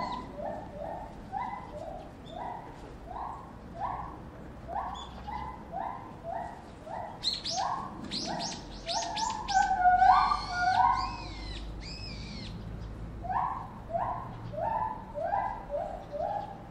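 Chimpanzee pant-hoot: a run of rhythmic hoots, two to three a second, building midway into loud, high screams and then dropping back into hoots.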